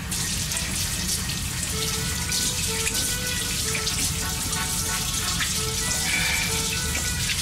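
Kitchen mixer tap running steadily into a stainless steel sink while hands are washed under the stream.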